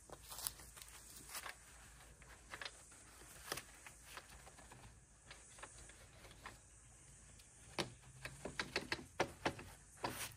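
Light clicks and knocks from hands working on the metal frame of a small boat trailer. A quicker run of sharp clicks comes near the end, over a faint low hum.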